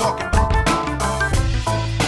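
Background music with a steady funk-style beat: drums, bass and melodic instruments.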